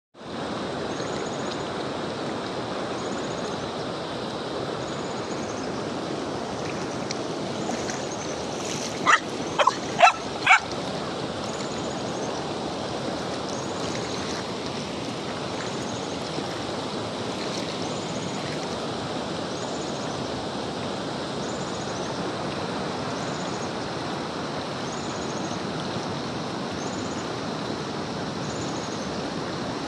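Shallow river running steadily over stones, with a German Shepherd puppy barking four times in quick succession about nine to ten seconds in.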